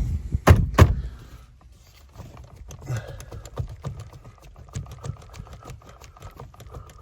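A couple of heavy knocks on the steering wheel as it is worked off the steering column shaft, then a fast run of light clicks and rattles with a faint steady tone underneath.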